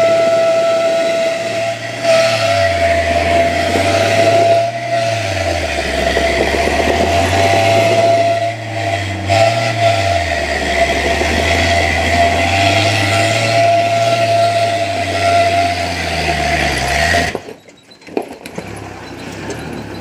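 Off-road 4x4 vehicle engine revving up and down repeatedly, with a steady high-pitched whine over it. The sound cuts off sharply near the end.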